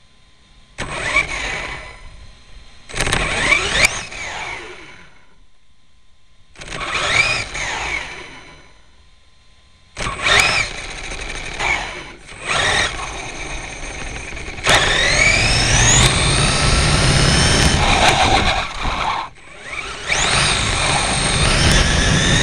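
Electric RC car's motor whining up in pitch in bursts of throttle, with tyre and road rumble, picked up by a camera riding on the car. Three short bursts come first, then near-continuous running from about ten seconds in, with a brief drop off the throttle near the end.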